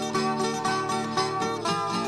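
Background music: a brisk tune of plucked string notes, several a second.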